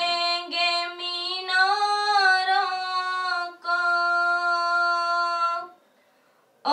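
Female voice singing a naat without instruments, in long held notes with a slow waver. There is a short break about three and a half seconds in, and the singing stops shortly before the end.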